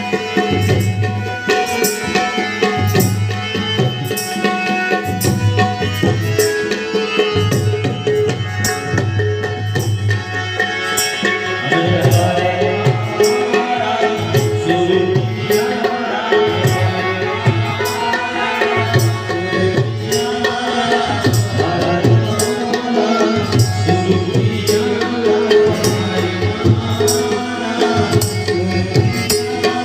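Garba music played loud over a PA sound system, with a steady hand-drum beat under a melody.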